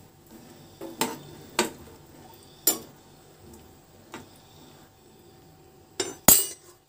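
A metal spoon stirs cluster beans in water in an aluminium pressure cooker, knocking against the pot four times. A louder clatter of metal on metal follows about six seconds in.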